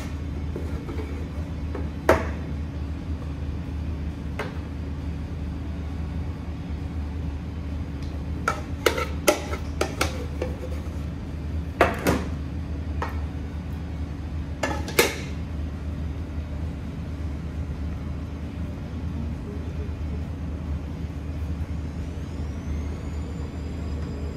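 Metal ladle clinking and knocking against a large stainless steel stockpot and tray as meat sauce is ladled out, a handful of sharp clinks with a quick cluster about a third of the way in. A steady low hum sits underneath.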